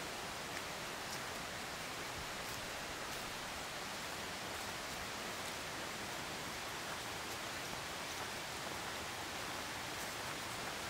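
A mountain river running steadily beside an open-air hot-spring bath: an even rushing hiss with no rhythm or change.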